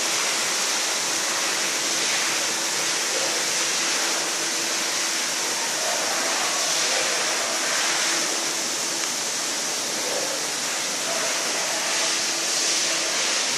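Steady rush of water pouring into a swimming pool from a water feature, with a faint steady hum underneath.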